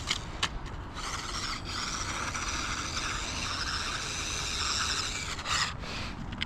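Losi Micro B 1/24-scale RC car's brushed electric motor and gears whining at speed, steady for about five seconds and cutting off near the end, with a few sharp clicks around it.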